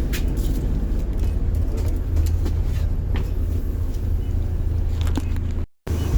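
Bus diesel engine running, a steady low rumble heard from inside the bus, with small rattles and clicks over it. The sound cuts out completely for a moment near the end.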